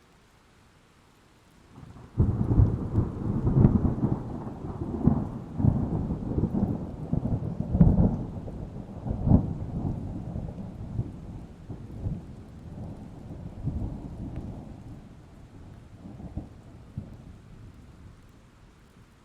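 A single long peal of thunder: a sharp crack about two seconds in, then a rolling rumble broken by repeated crackles that slowly fades away over some fifteen seconds.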